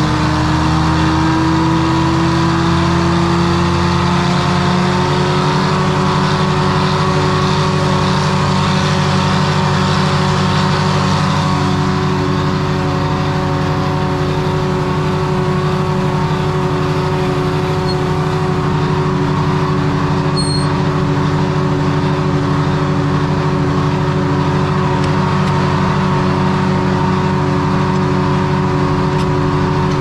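Detroit Diesel 3-71 three-cylinder two-stroke diesel engine running steadily, its pitch rising a little over the first few seconds and then holding.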